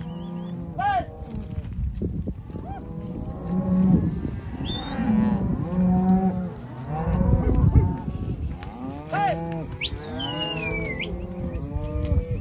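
A herd of beef cows and calves mooing continuously, many calls overlapping, the cows' low calls mixed with higher-pitched calf calls as the herd is driven along.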